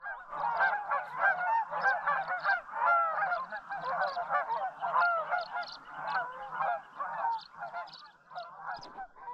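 A flock of geese honking, many calls overlapping; it starts suddenly and thins out near the end.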